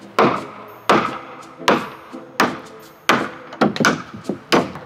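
Hammer driving loose nails back into the wooden frame of an old outhouse: about eight sharp blows, each with a short ring, coming faster near the end.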